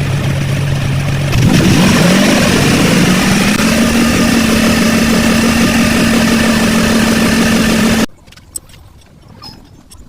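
A loud motor running at a steady pitch, speeding up about a second and a half in, holding at the higher speed, then cutting off suddenly.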